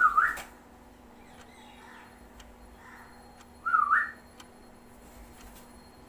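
Two short, clear whistles about three and a half seconds apart, each dipping and then sweeping up in pitch.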